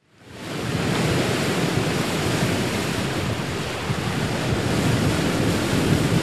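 Beach ambience: the steady rush of sea surf with wind, fading in from silence at the start.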